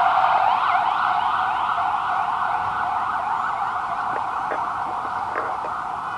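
Emergency-vehicle siren wailing with rapid up-and-down sweeps of pitch, fading steadily as it moves away.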